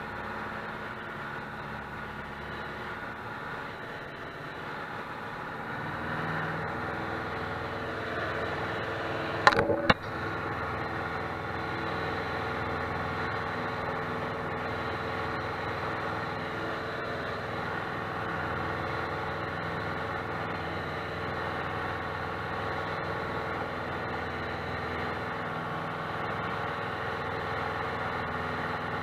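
Piston engine and propeller of a single-engine light aircraft running steadily, heard inside the cockpit; the engine gets louder about six seconds in as the plane climbs away from the runway. Two sharp clicks about half a second apart come just before ten seconds in.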